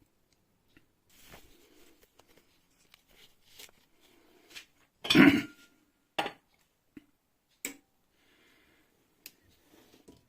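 Scattered clicks and knocks of kitchen cookware and utensils being handled, with one louder clatter about five seconds in and a few sharper knocks after it.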